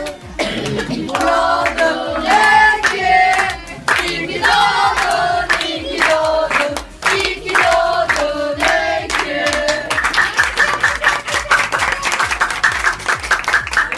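A group of people singing a birthday song together, with hand-clapping. About ten seconds in, the singing gives way to fast, steady clapping.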